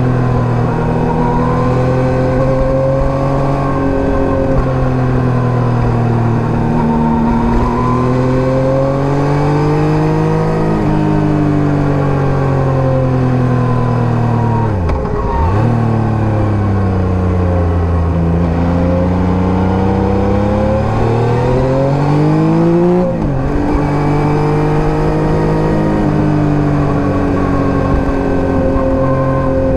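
Yamaha MT-09 third-generation inline three-cylinder engine breathing through an SC Project STR-1 exhaust while riding. Its pitch rises and falls slowly with the throttle, and twice, about 15 and 23 seconds in, the engine speed drops sharply and picks straight back up.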